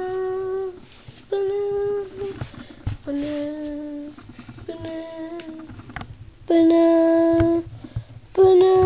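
A voice singing a slow tune of six long held notes, each about a second, with short gaps between.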